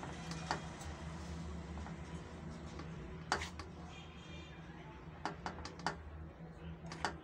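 Spoon knocking and scraping against a bowl while stirring gram flour (besan) with a little water into a crumbly mix: irregular sharp clicks, several close together toward the end, over a low steady hum.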